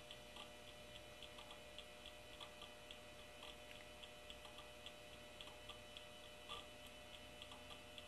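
Near silence: faint room tone with a steady, light ticking, about three ticks a second.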